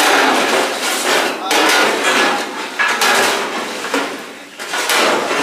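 Long-handled metal ladles scraping and knocking against a giant metal cooking pot in repeated strokes about a second long, as the beef is stirred so that it does not stick to the bottom.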